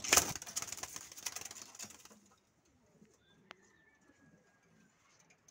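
Domestic pigeons cooing softly in their loft. A loud clatter and rustle of handling near the start, then quieter.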